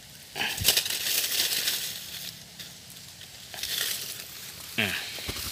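Dry bamboo leaf litter crunching and crackling as a hand grabs a snared quail from the ground and lifts it out. The sound comes in a few rustling bursts, the loudest about half a second in.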